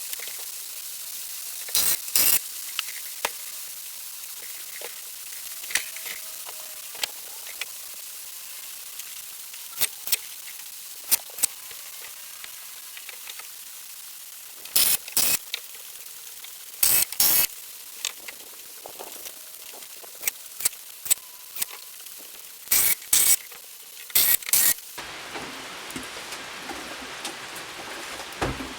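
Steady hiss of light rain with scattered sharp knocks and clacks, some in pairs, from wood and tools as a wooden frame is put together. About 25 seconds in, the rain turns heavier and fuller.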